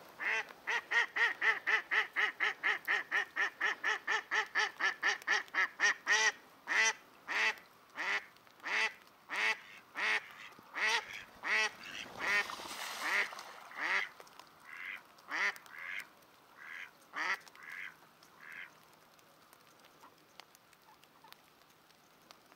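Hen duck, the live decoy hen, quacking in a long series: a rapid run of about three quacks a second for the first six seconds, then slowing to single quacks a second or more apart that fade out after about eighteen seconds. This is the hen's calling that draws drakes in.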